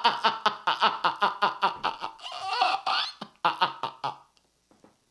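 A man laughing hard in rapid, evenly spaced bursts, then a few looser, breathy laughs that trail off about four seconds in.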